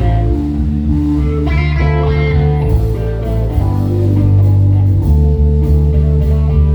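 Live band playing: guitar over bass and drums.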